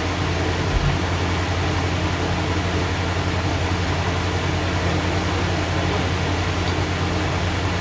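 Steady low mechanical hum with an even hiss, unchanging throughout, with one soft low thump about a second in.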